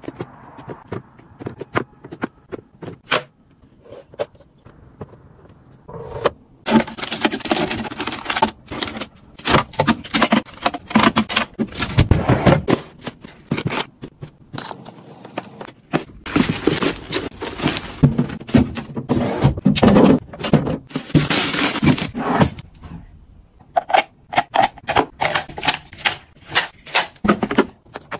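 Food packaging and plastic storage containers being handled: a run of sharp clicks and taps, with two long stretches of dense rustling in the middle.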